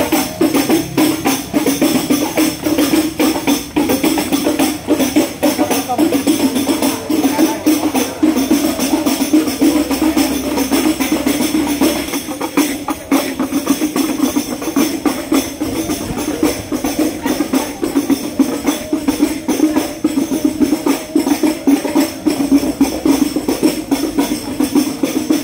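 Music led by hand percussion: a fast, dense beat of drum strikes keeps going without a break.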